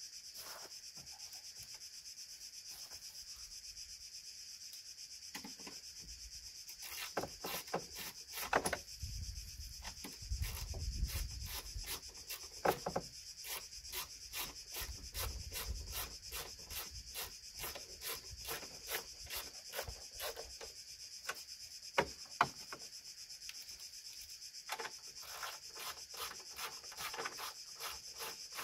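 Hand ratchet wrench clicking in quick runs of strokes, starting about a quarter of the way in, over a steady high hiss.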